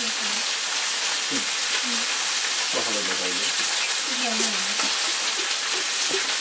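A wooden churning stick spinning back and forth in a pot of curd makes a steady, wet sloshing hiss as butter gathers into clumps around it. Faint voices can be heard in the background.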